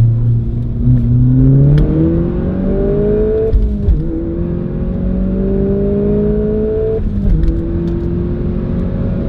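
Audi S1 Quattro's 2-litre turbocharged four-cylinder with an Akrapovic exhaust, heard from inside the cabin under hard acceleration. The engine note rises, drops at an upshift about three and a half seconds in, rises again, and drops at a second upshift about seven seconds in.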